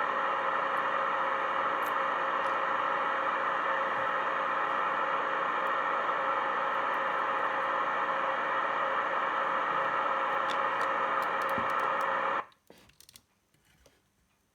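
Steady static hiss with a faint hum-like tone from a car stereo head unit's test speaker, driven by its newly replaced TDA7388 amplifier IC. It cuts off abruptly about 12 seconds in, then a few faint clicks.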